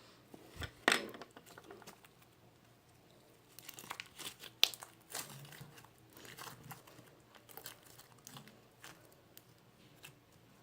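Slime being handled and squeezed, giving irregular sticky crackles and pops, loudest about a second in and again around four to five seconds in.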